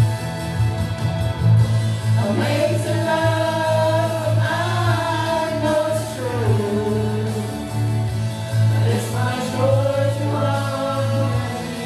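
Gospel praise-and-worship song: a small group of voices singing together over a steady accompaniment with a strong low bass. The voices come in about two seconds in, over accompaniment alone.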